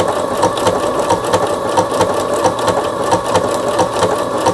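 Singer Confidence computerized sewing machine stitching a seam through fabric, running steadily with a quick, even rhythm of needle strokes. This is its test sewing after repair.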